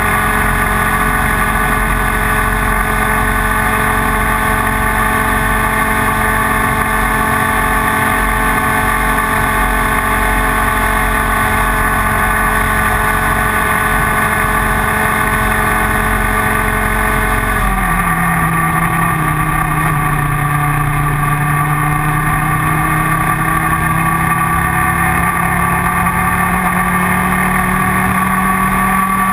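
Two-stroke Leopard 125cc kart engine at high revs, holding a steady high pitch. About two-thirds of the way through, the pitch drops sharply, then climbs slowly back up as the engine pulls again.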